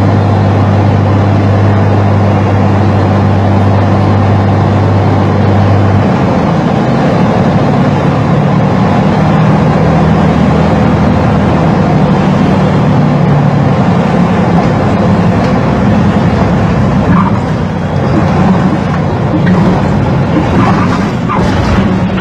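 A light aircraft's engine droning steadily as heard inside the cockpit, its tone shifting about six seconds in.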